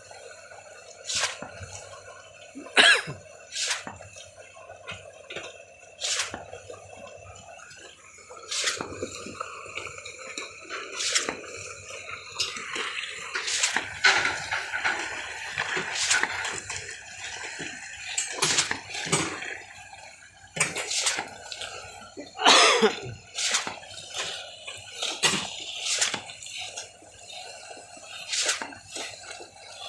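Wet concrete being poured and worked on a slab: irregular wet slaps, splashes and sharp knocks over a steady machine hum, with a longer rush of splashing about halfway through.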